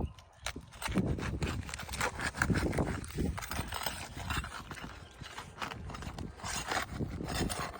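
Irregular metal knocks and scraping of a pry bar working under asphalt roof shingles to lever a roofing nail loose.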